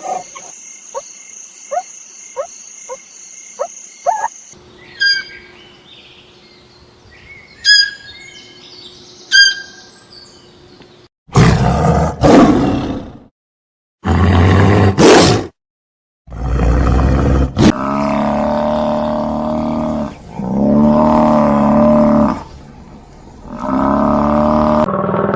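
A series of different animal calls, one clip after another: short repeated calls and chirps in the first part, then loud, rough calls broken by brief silences, and long, drawn-out pitched calls in the last third.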